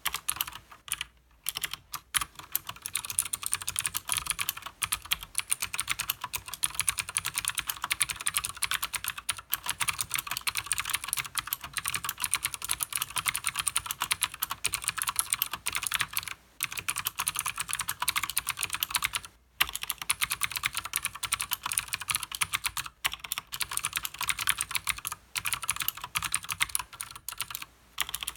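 Fast continuous typing on a Leopold FC900R mechanical keyboard with Cherry MX Blue switches and side-printed PBT keycaps: a dense run of sharp, crisp clicks, broken by a few brief pauses.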